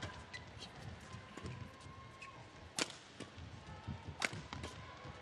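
Badminton rally: rackets hitting the shuttlecock, two sharp hits about a second and a half apart, over the squeak of players' shoes on the court floor.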